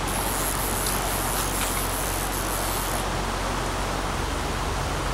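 Steady rushing of a shallow stream riffle running over rocks, with a thin high hiss over it that stops suddenly about three seconds in.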